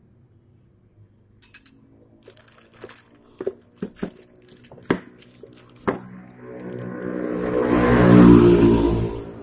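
Scattered light clicks and knocks of small hard scope parts being handled and set down on a tiled floor. Over the last three seconds a louder rough noise swells and fades.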